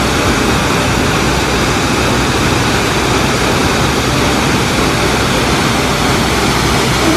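Waterfall: a loud, steady rush of water pouring down a rock face.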